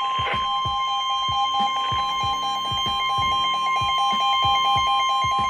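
NOAA weather radio warning alarm: a steady 1050 Hz tone, with a second, lower beeping tone pulsing rapidly alongside it and a regular beat underneath.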